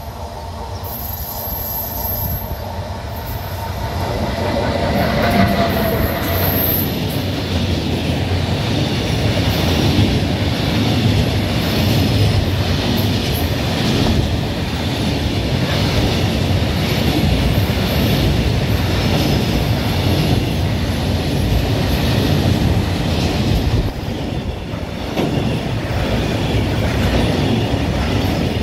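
A 111Ed (Siemens Vectron) electric locomotive approaches and passes, growing louder over the first five seconds. A long rake of grain hopper wagons follows, rolling past close by with steady wheel-on-rail noise and a regular clatter of wheels over the rail joints.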